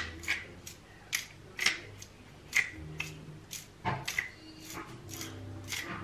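Hand-twisted salt grinder grinding salt: a short, crisp crunching rasp with each twist of the mill, about twice a second.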